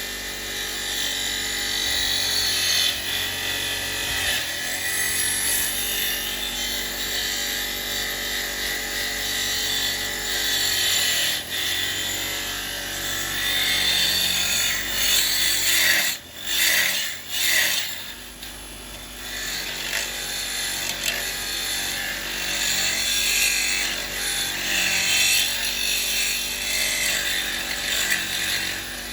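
Motor-driven wire wheel brushing rust off a steel spanner: a steady motor hum under a hissing, scratching noise. The brushing breaks off briefly twice around the middle.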